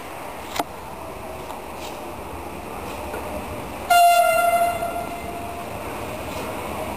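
Horn of an approaching train sounding one steady-pitched blast about four seconds in, loud for under a second and then carrying on faintly. A sharp click comes shortly after the start, over steady background noise.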